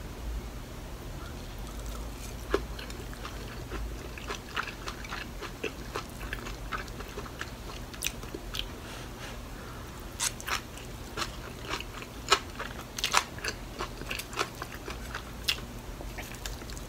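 Close-up chewing and crunching of mouthfuls of kimchi pancake with shrimp, heard as a run of irregular, crisp little crackles and clicks.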